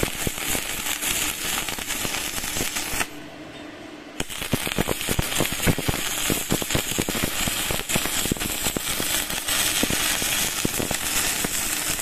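Stick (MMA) welding arc from a mini DC inverter welder burning an electrode on steel plate: dense, steady crackle and sizzle. The arc breaks for about a second around three seconds in, then is struck again and crackles on.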